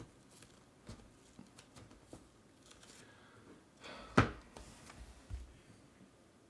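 Faint handling sounds of a trading-card box being worked open: scattered light clicks and scrapes of its packaging, with one louder knock about four seconds in.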